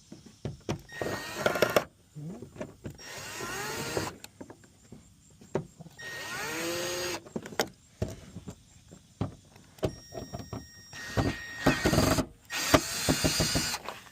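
Cordless drill/driver backing out the screws behind the door-handle trim, running in several short bursts that spin up and wind down, with clicks and knocks of the bit and parts between.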